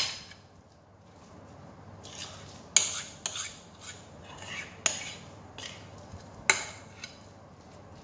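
Spatula scraping thick batter out of a glass mixing bowl into a loaf pan, with several sharp clinks of utensil on glass along the way.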